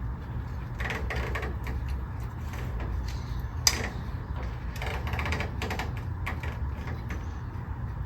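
Scattered small clicks and rattles of hands and tools working on engine parts under a truck's hood, with one sharper click a little over three and a half seconds in, over a steady low hum.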